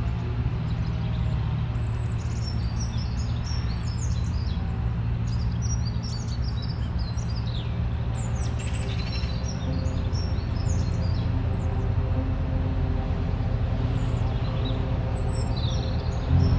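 Birds chirping and tweeting over sustained low background music chords; the music swells louder right at the end.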